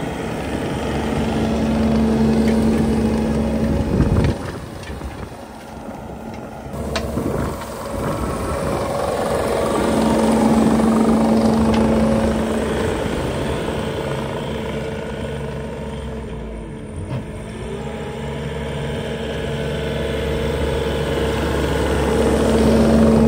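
Skid-steer loader's engine and hydraulic soil-conditioning attachment running under load, a steady hum with a whine over a low rumble. The sound swells and eases, dropping briefly about four seconds in and again about two-thirds through.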